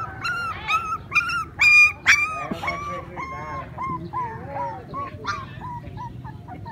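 Puppy crying: a quick run of high-pitched whimpers and yelps, loudest about two seconds in, then settling into shorter, quieter whines about two a second.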